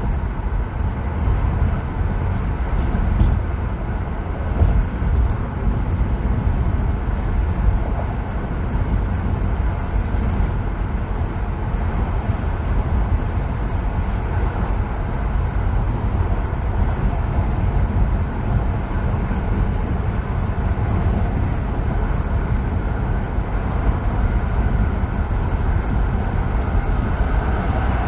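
Steady road noise of a car driving on a freeway: a continuous low rumble of engine and tyres on the road surface, with no distinct events.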